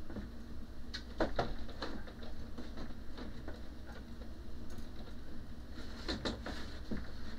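Hard plastic storage rack knocking and clicking against a pegboard as it is lifted and fitted into place by hand: a cluster of sharp clicks about a second in and another around six seconds, over a steady low hum.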